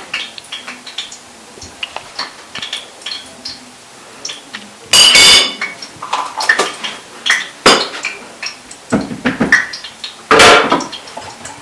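Kitchen utensils and dishes clinking and knocking: a spoon against bowls and containers, with two loud, ringing clanks about five seconds in and near the end.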